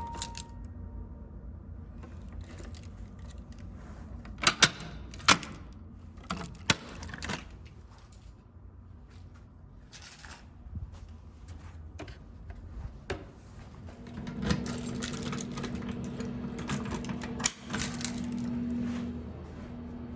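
Scattered sharp clicks and knocks, the loudest two close together about four and a half seconds in, then a low steady hum that starts about two-thirds of the way in and stops shortly before the end.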